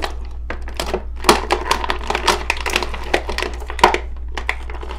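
Clear plastic packaging crackling and rustling as an action figure is worked out of its blister tray and thin plastic bag: irregular crinkles and clicks, with a louder snap about a second in and another near the end.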